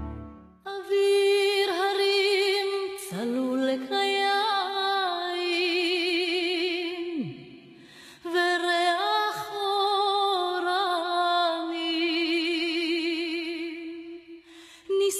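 Background music: a wordless woman's voice singing long held notes with vibrato, in two phrases with a short break about halfway.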